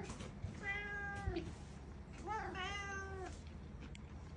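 Domestic cat meowing twice, each meow drawn out for about a second and falling in pitch at the end.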